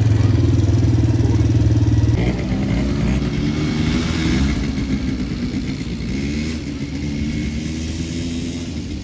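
ATV (quad bike) engines running. First comes a loud, steady engine note heard up close from the bike being ridden. About two seconds in it gives way to quieter quad engines whose pitch rises and falls as they ride around the track.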